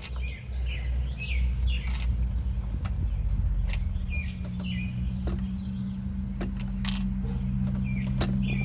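A steady low mechanical hum runs throughout, with birds chirping again and again and a handful of sharp metal clicks from hand work on the truck's fuel-line fitting.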